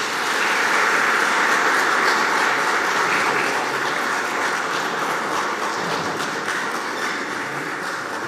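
Audience applauding: dense, even clapping that builds within the first second and slowly thins out near the end.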